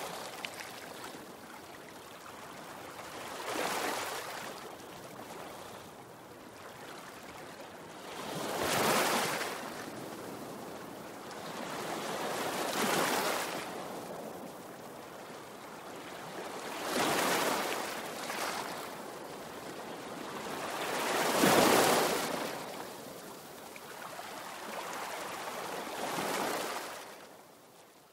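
Ocean waves washing in and drawing back, one swell about every four seconds, fading out near the end.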